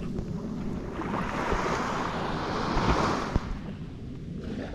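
Sea waves washing against the shore: one wave swells up about a second in and dies away after about three seconds, with wind rumbling on the microphone throughout.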